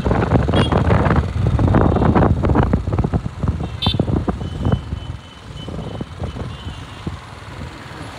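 Riding a motorcycle through traffic: wind buffeting the microphone over the bike's engine and road noise, heavy in the first five seconds and easing after.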